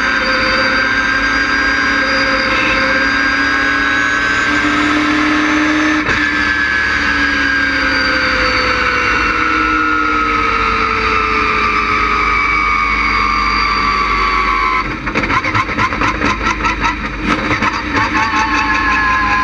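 LS6 V8 engine of a GTA stock car, heard from inside the stripped cockpit. Its pitch holds at first, then falls slowly and steadily for several seconds. About 15 seconds in it turns choppy, in quick uneven pulses, and a steady pitch returns near the end.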